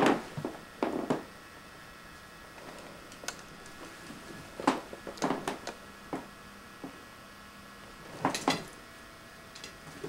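Cat playing with a tinsel ball toy on a bare wooden floor beside banister spindles: a few short, light knocks and clatters at irregular moments, the loudest pair near the end, over a faint steady hiss.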